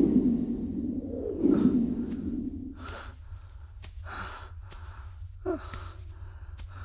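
A man's labored breathing: a rough low groan, then a string of short, ragged gasps at uneven intervals.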